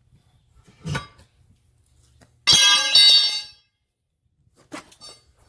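A loud metal-on-metal clang that rings on briefly, two strikes about half a second apart: a steel tire tool striking the tractor's steel wheel rim while the tire bead is worked on. A duller knock comes about a second in.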